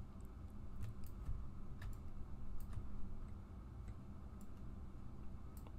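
Faint, irregular clicks of a computer mouse over a low steady hum.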